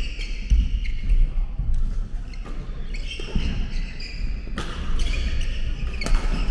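Badminton doubles rally on a wooden gym floor: sharp racket-on-shuttlecock hits about once a second, with court shoes squeaking and thudding as the players move.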